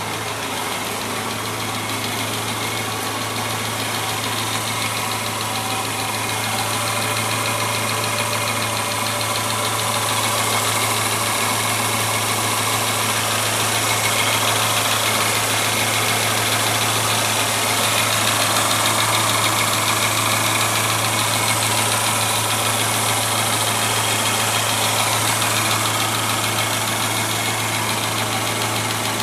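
Subaru EJ22 2.2-litre flat-four engine idling steadily, heard from under the car.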